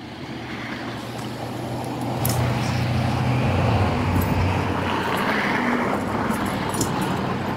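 A motor vehicle's engine running close by, growing louder over the first couple of seconds and then holding steady.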